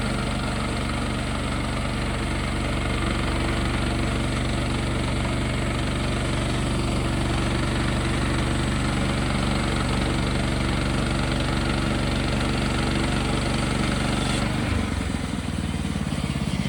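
Sawmill's engine running steadily; near the end its note changes and drops lower.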